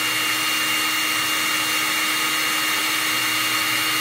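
Electric hand mixer running at a steady speed, its twin beaters whipping egg whites into meringue in a glass bowl, with an even motor hum and a steady high whine.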